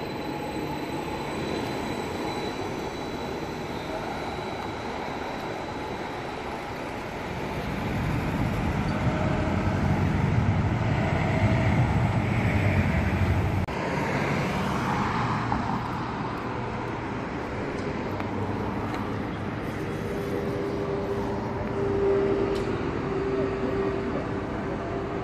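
Street traffic noise: steady road rumble, swelling for several seconds as a vehicle passes close by, then cut off abruptly about 14 seconds in. Steady traffic noise follows, with a steady tone in the last few seconds.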